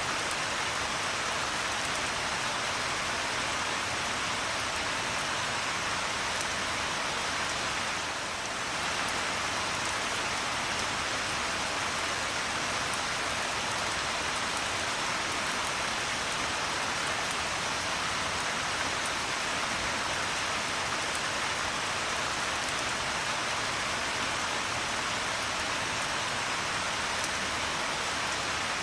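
Steady rain falling, a dense even patter of drops on a surface, with a brief slight dip in level about eight seconds in.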